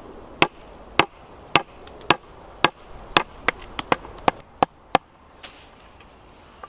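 Wooden club striking the back of a blade to baton it into a stick of dry hazel wood, about a dozen sharp knocks. The first five come about half a second apart, then quicker, lighter taps follow before the striking stops about five seconds in.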